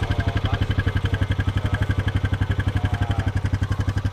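ATV engine idling with a loud, fast, even putter.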